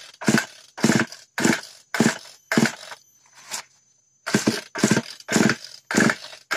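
Recoil starter of a Stihl 461-style two-stroke chainsaw being pulled over and over, about ten quick pulls roughly two a second with a short break around three seconds in. It is a cold start with the choke closed.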